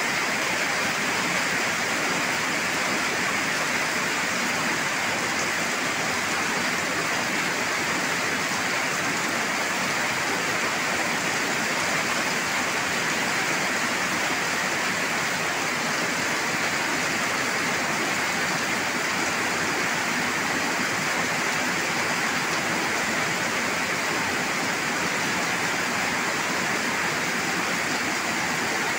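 Heavy tropical rain pouring down steadily: an even, unbroken hiss of water falling on plants, pots and paving.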